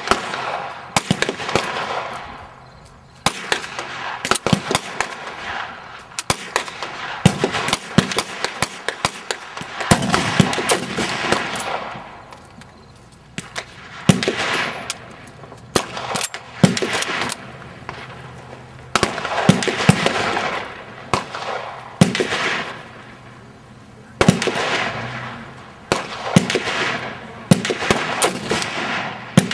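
Gunshots on a shooting range: many sharp cracks with echoing tails, several often within a few seconds, too many for one bolt-action rifle. Among them is a Mosin-Nagant bolt-action rifle in 7.62x54R fired from the bench, along with other shooters' guns.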